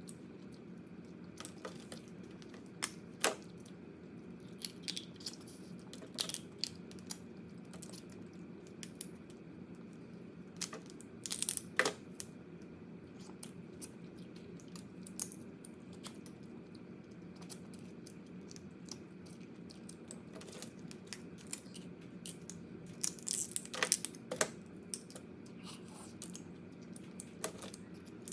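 Crab shells being cracked and picked apart while eating: scattered sharp cracks and clicks, bunched into quick clusters about midway and again near the end.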